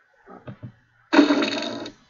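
A cartoon sound effect played back as a preview: a loud, dense mechanical-sounding burst lasting just under a second that cuts off abruptly, after a few faint clicks.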